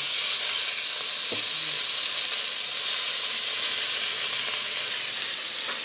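Halloumi slices sizzling steadily on a hot griddle pan, freshly turned to cook their second side. There is one faint click a little over a second in.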